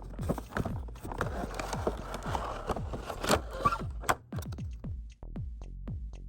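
Background electronic dance music with a steady kick-drum beat, about four beats a second.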